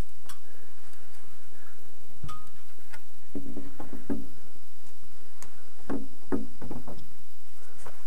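Scattered knocks and a few short creaks, about eight at irregular intervals, from a person moving about on wooden scaffolding.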